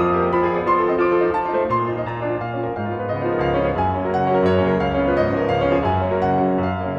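Background piano music: a melody of separate notes played over low bass notes.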